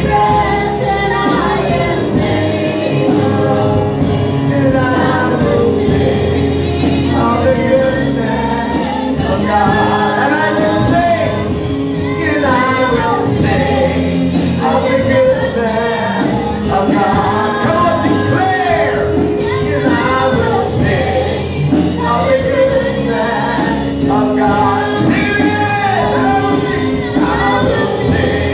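Worship leader on a microphone and church congregation singing a slow praise song together over instrumental accompaniment with long held chords, played through loudspeakers.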